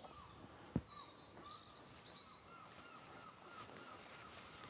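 Faint, distant bird calls: short calls repeated several times a second, busiest in the second half. A single sharp knock about a second in.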